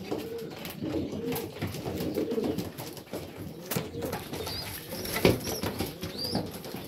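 Domestic pigeons cooing while they feed, with many small clicks of beaks pecking grain from wire feeders and a sharper knock about five seconds in. A few faint high chirps sound in the second half.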